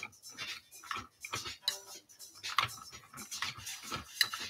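Metal fork scraping and mashing through a soft mashed-potato and ground-beef mixture in a ceramic bowl: short, irregular scrapes, about two a second.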